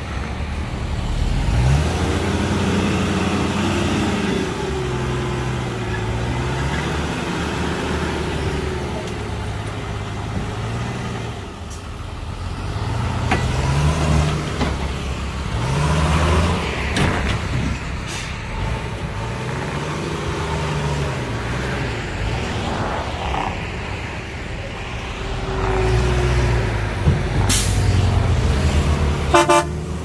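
Heavy diesel engine of a dump truck or bulldozer at work, revving up and dropping back over and over. A short horn toot comes near the end.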